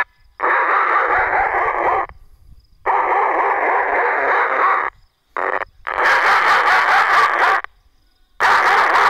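Horn loudspeaker animal scarer playing recorded machine-gun fire in bursts of about one and a half to two seconds, with short pauses between and one very brief blip. It is a scare sound meant to drive wild animals and birds off the crop.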